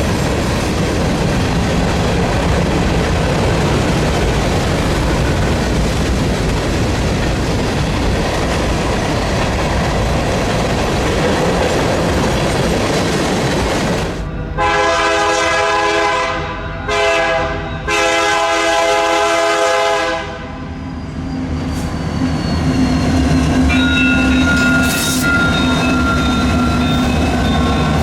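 Freight train rolling past with a steady rumble and clatter of cars on the rails. About halfway through, a diesel locomotive's air horn sounds three blasts: long, short, long. A steady low engine note with a faint whine follows.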